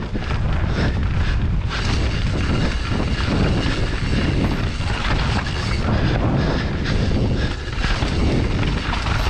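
Mountain bike descending a dirt forest trail at speed: wind rushing over the action camera's microphone and tyres rolling over dirt, with frequent knocks and rattles as the bike hits bumps and roots.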